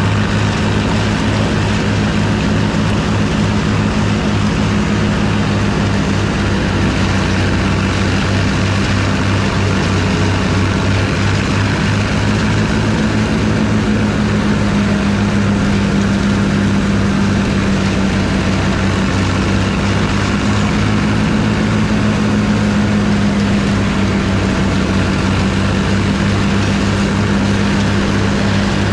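Farmall 560 tractor's six-cylinder engine running steadily under load, driving a Gehl 400 forage chopper that is cutting and blowing corn stalks.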